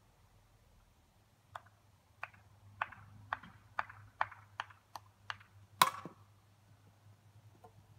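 A run of light clicks, roughly two a second, then about six seconds in a single sharp crack of a hollow plastic whiffle bat hitting a whiffle ball.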